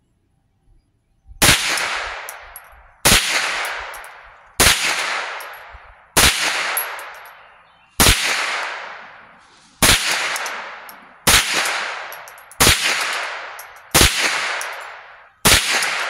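Ten shots from a Winchester Wildcat .22 LR semi-automatic rifle, fired at a steady pace about one and a half seconds apart, each sharp crack trailing off in a fading echo.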